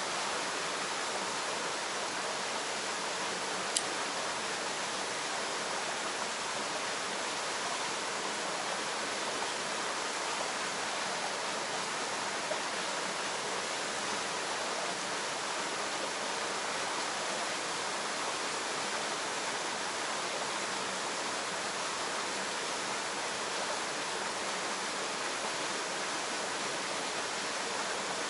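Small waterfall spilling steadily down a rock face into a pool, an even wash of water noise. One light tick about four seconds in.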